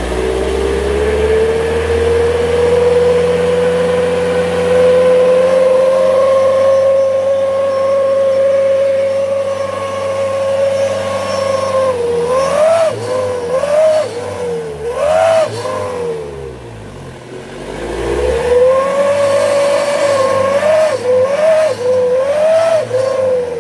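Mitsubishi L300 pickup with a triple-pipe 'srigala' (wolf) whistle exhaust, giving a loud howling tone whose pitch follows the revs. It holds steady, slowly climbing, for about half the time, then swoops up and down with a series of quick revs, sags, and swells again with more quick revs near the end.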